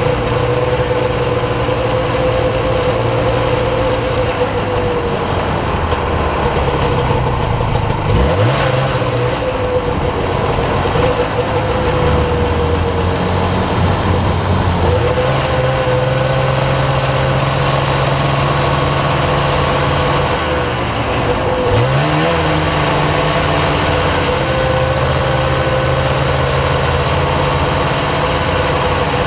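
Snowmobile engine running steadily while riding along a snow trail. Its pitch drops and then climbs back up twice, about a third of the way in and again about three quarters of the way in, as the rider eases off and accelerates again.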